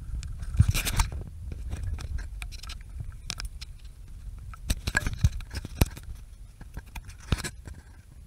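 Handling noise from a camera moving through brush: rustling and scraping of leaves and twigs, with scattered sharp knocks and snaps over a low rumble. The loudest knocks come about a second in and again around five and seven seconds.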